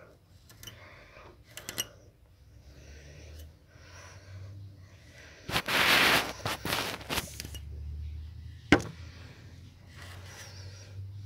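Bedding rustling and scraping as a calico cat wrestles with a string and a hand, with a loud rush of rustling lasting about a second and a half in the middle and a sharp click a little later.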